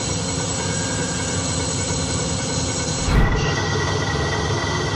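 CNC lathe drilling into a spinning bar: a steady mechanical whir of spindle and cut, with a spade drill. About three seconds in comes a short low thump, and after it, with an indexable square insert drill cutting, a steady high whine joins the noise.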